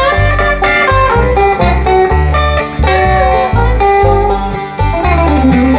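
Bluegrass band playing an instrumental break, with banjo and acoustic guitar picking over an upright bass that keeps a steady beat.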